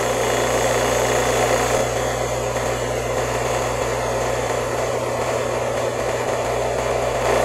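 Refrigerant recovery machine running steadily with a low hum, its compressor pulling refrigerant out of a car's A/C system into a recovery cylinder.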